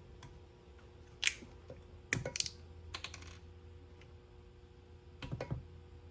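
Small metal engine parts and hand tools being handled during valve seal work, giving short clusters of light clicks and taps, a few at a time, over a faint steady hum.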